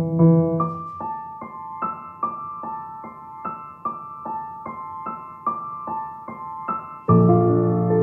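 Background piano music: a gentle repeated figure of high notes, about two and a half a second. Near the end fuller, louder chords with low notes come in.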